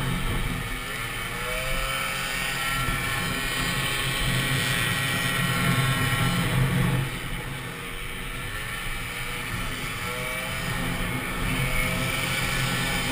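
Peugeot Fox 49cc two-stroke moped engine running hard, heard from on board. Its revs drop twice and climb back up each time.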